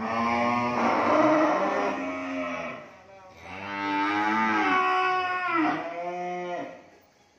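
Cattle mooing: two long moos of about three seconds each, the second starting about three and a half seconds in.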